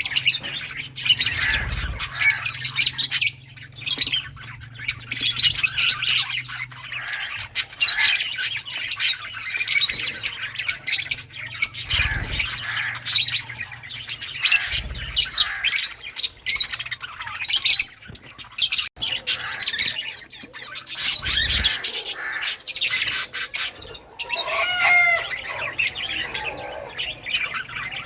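Lovebirds chirping and squawking nonstop in quick, shrill, overlapping calls, with a longer wavering call about 24 seconds in.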